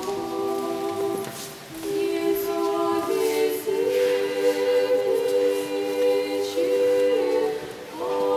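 Women's choir singing Russian Orthodox liturgical chant a cappella, holding chords in several parts, with a short break between phrases about a second and a half in and another near the end.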